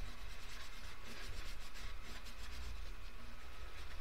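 Grey coloured pencil scribbling on paper in quick, steady back-and-forth shading strokes, a scratchy rubbing sound.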